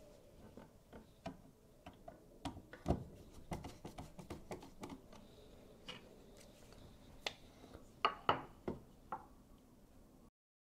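Irregular small clicks and taps of hand tools on a wall receptacle: a screwdriver working the mounting screws and a level being set against the plastic wall-plate frame. The sharpest clicks come about three seconds in and around eight seconds in.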